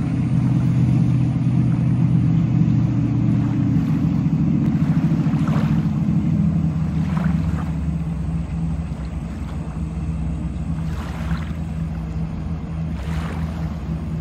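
Cabin cruiser's engine running as the boat passes on the river: a steady low drone that eases off about halfway through, with a few brief rushing sounds over it.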